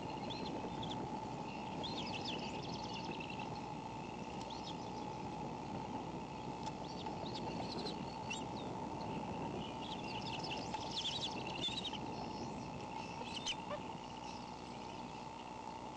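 Bald eagle nestling giving thin, high chirps in short clusters while being fed, busiest about ten to twelve seconds in, with a slight wheeze. Under the chirps is a steady rushing background noise.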